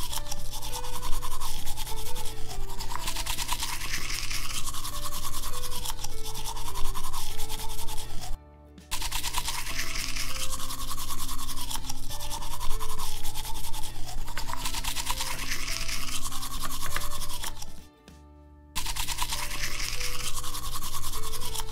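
Plastic toy toothbrush scrubbing rapidly back and forth over Play-Doh teeth in a plastic toy mouth, over background music. The sound cuts out twice, briefly.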